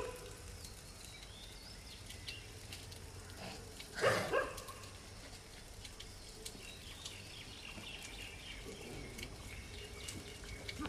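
Faint outdoor bush ambience with light bird chirps, broken about four seconds in by one short animal grunt.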